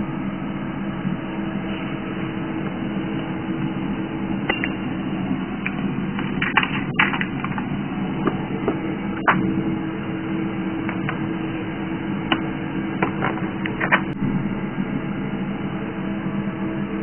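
A steady low hum with scattered sharp clicks and clinks of a glass beaker and a glass jar of tin pieces being handled, the clinks bunched between about four and fourteen seconds in.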